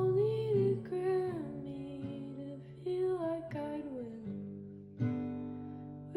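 A woman singing a slow song with acoustic guitar accompaniment, her voice gliding between long held notes over guitar chords struck about once a second.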